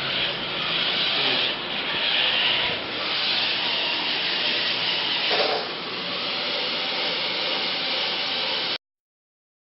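Small four-wheel-drive robot's DC gear motors and wheels running with a rough whirring, rubbing noise that dips and swells a few times as its speed and direction change, then cuts off suddenly near the end.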